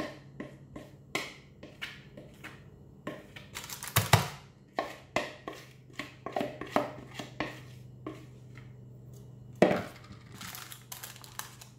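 Spatula scraping thick cake batter out of a mixing bowl into a paper-lined loaf tin: a string of irregular scrapes and soft taps over a low steady hum. There is a louder knock about four seconds in, and another near the end as the bowl is set down on the counter.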